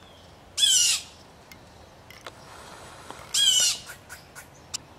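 Blue jay giving two harsh scolding calls, each about half a second long and nearly three seconds apart: the alarm jays sound at a hunting cat.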